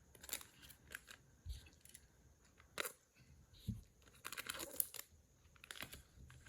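Plastic cello-pack wrapper of trading cards being torn open and crinkled by hand: scattered sharp crackles, thickest about two-thirds of the way through.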